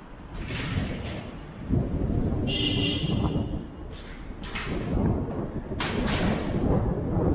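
Wind buffeting and rumbling on an action camera's microphone while riding a scooter, with a few short hissing gusts and a brief high squeal about two and a half seconds in.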